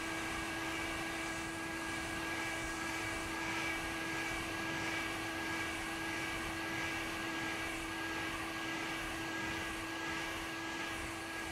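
Handheld hair dryer running steadily, blowing hot air: an even motor whine with a few fixed tones over a rush of air.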